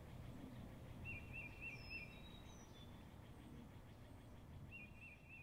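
Faint outdoor ambience: a low background rumble, with a bird singing a short phrase of four quick, high, hooked notes twice, first about a second in and again near the end.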